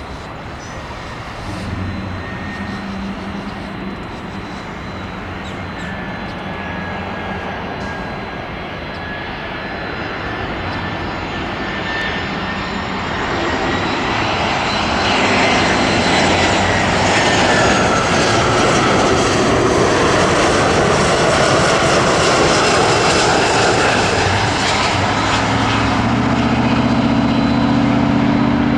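A jet airliner's engines passing close, building to a loud steady noise with a whining tone that drops in pitch as the aircraft goes by, about halfway through. A low droning hum comes in near the end.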